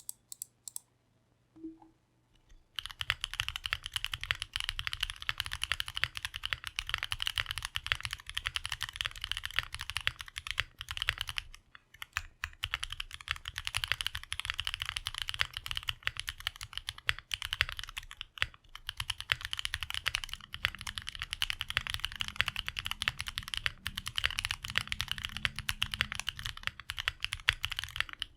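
Continuous fast typing on a custom Portal 65% mechanical keyboard. It has a gummy O-ring mount and aluminium plate, Krytox-lubed AEBoards Snag switches, TX stabilizers and ePBT ABS keycaps. It starts about three seconds in and pauses briefly twice. The ABS keycaps give a high-pitched clack over the board's naturally deep sound.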